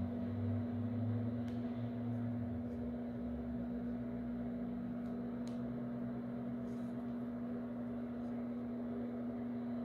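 Steady machine hum, with a few faint ticks.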